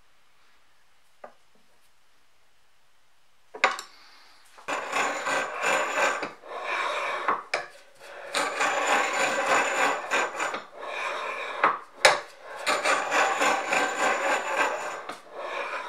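A planer knife in the Kity 642 sharpener's sliding holder is scraped back and forth across the unpowered grinding stone in a series of rasping strokes, each one to two seconds long with short gaps. There is a sharp metal click as the strokes begin and another partway through.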